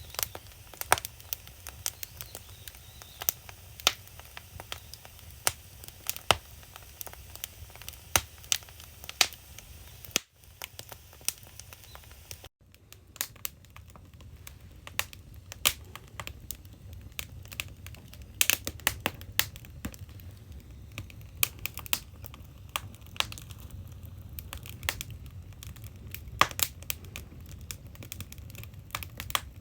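Firewood burning in a traditional Korean agungi (the wood-fired firebox of an ondol floor), crackling with irregular sharp pops over a low steady rumble of the fire.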